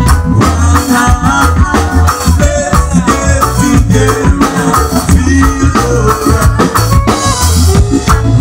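Live band playing loud music with a steady beat: drum kit and electric bass underneath, with saxophone and male vocals sung into microphones.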